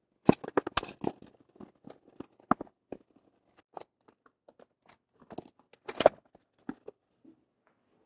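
Half-inch plywood pieces knocking and tapping against each other as a pedal board is dry-fitted by hand, in scattered sharp clicks: a quick cluster in the first second and the loudest knocks about six seconds in.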